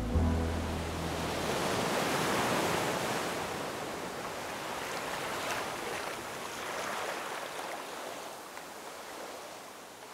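Ocean surf washing onto a beach, a steady rushing that slowly fades out. A last low music note dies away in the first second.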